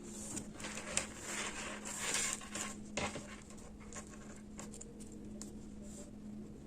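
Lines being drawn along cotton lining fabric: scratchy strokes with fabric rustling and a few light clicks of handling, busiest in the first three seconds and then quieter. A faint steady hum runs underneath.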